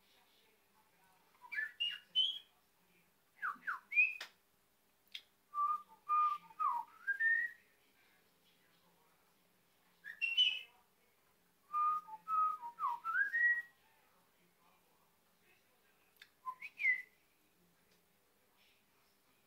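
Budgerigar whistling in short phrases of clear notes and quick upward glides, about six bursts with pauses between them.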